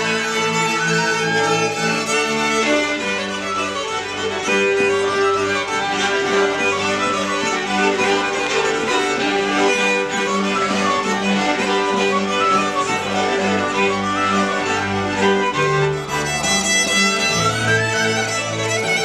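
Traditional Austrian folk dance tune played by a small acoustic ensemble: two fiddles carry the melody over a bowed double bass, with saxophone and Kontra in the band.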